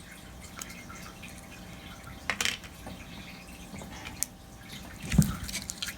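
Clear Elmer's slime being handled in its tub: quiet wet clicks and squelches, with a couple of louder pops about two and a half seconds in and another near the end.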